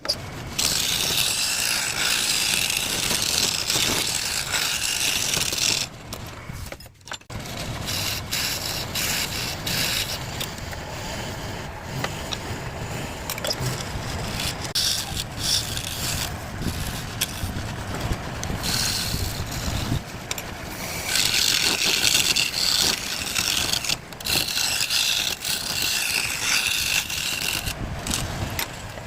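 Scraping on wood as it is worked by hand, a steady hiss that is loudest for the first six seconds and again from about twenty-one seconds in.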